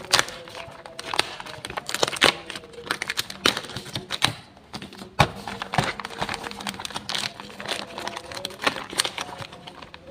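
Irregular sharp clicks and taps of hard plastic toy parts and packaging being handled.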